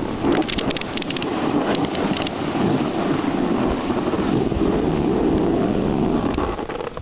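Steady rushing wind noise on the microphone while snowboarding, with quick runs of scraping clicks about half a second in and again around two seconds in.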